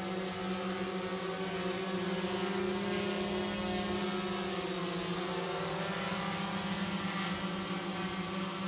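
GoPro Karma quadcopter's propellers humming steadily in flight, the pitch dipping slightly about halfway through before settling again.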